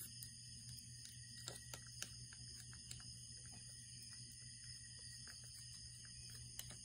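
Near silence: a steady low hum and hiss, with scattered faint, irregular clicks.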